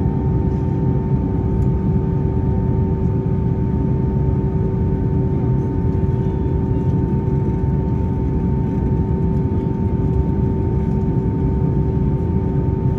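Steady cabin noise inside an Airbus A321ceo at idle near the gate: a low, even rumble with a constant two-note hum from the engines and air system.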